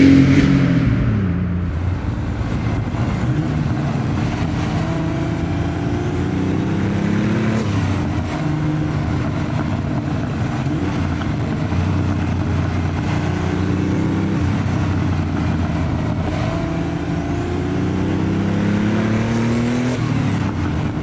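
Porsche 930 Turbo's air-cooled turbocharged flat-six pulling under acceleration. It is loudest at the very start, drops back about a second in, then rises in pitch again several times as it revs up through the gears.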